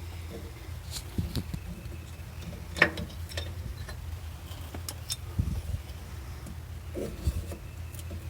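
Scattered metal clicks and knocks from hand tools taking the two bolts out of a Caterpillar D4H's transmission suction filter cover, the sharpest about three seconds in, over a low steady hum.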